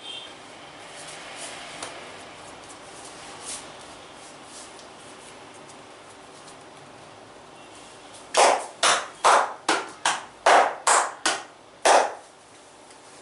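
A quick run of about nine percussive hand strikes on a person's back during a massage, a little over two a second, starting about eight seconds in.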